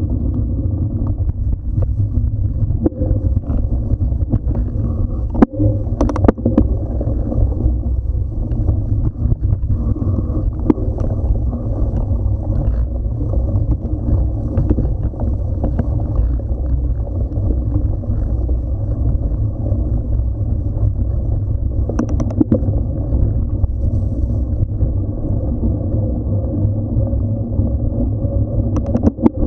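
A mountain bike riding over paved path and dirt track, heard as a steady low rumble of tyres and wind on the microphone. A few sharp rattles come from the bike going over bumps, about six seconds in, around the twenty-two-second mark and near the end.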